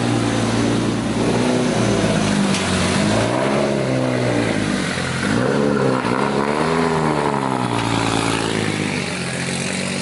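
Turbocharged 1JZ inline-six engine in a Lexus SC300 drift car idling, with a couple of brief revs that rise and fall back to idle.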